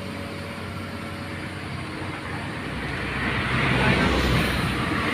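Heavy diesel engine running steadily, growing louder and harsher from about three seconds in, as machinery works or revs up.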